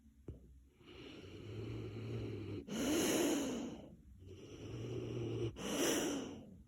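Mastiff snoring in its sleep: two slow breaths, each a low rumbling snore followed by a louder, airy blow of breath, about three seconds apart.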